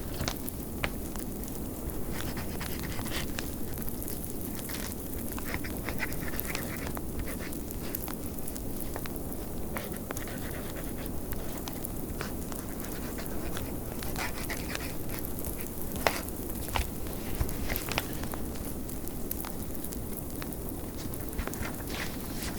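Wood fire crackling with scattered sharp pops over the steady rushing of a blizzard wind.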